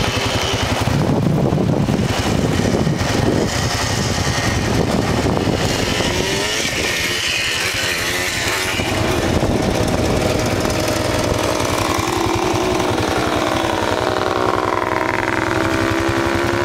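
Quad (ATV) engine revving as the rider pulls a wheelie past on sand, its pitch drifting down in the second half. Wind buffets the microphone throughout.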